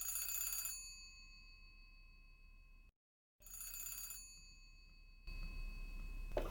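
An old-fashioned telephone bell rings twice, each ring a short rattle of about three-quarters of a second that leaves high metallic tones fading out, the second ring about three and a half seconds after the first. Near the end a low, steady noise starts up.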